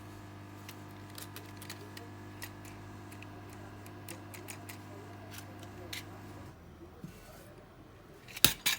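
A steady low electrical hum with a faint whine and scattered light clicks, which cuts off about six and a half seconds in. Near the end comes a short, loud clatter of small metal parts or tools being handled.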